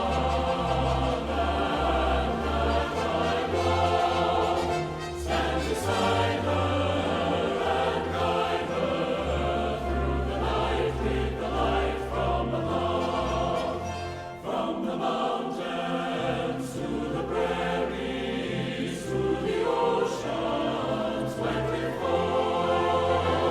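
Choral music with orchestra and a steady bass line.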